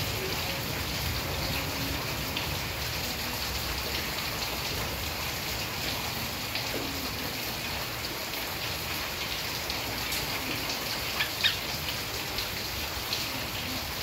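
A steady rushing noise with no pitch to it, with a few short sharp clicks near the end.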